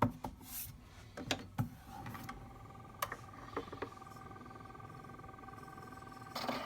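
A few light clicks and knocks of the Edison Diamond Disc phonograph being handled, then a faint steady whine with an even tone from about two seconds in as the machine runs.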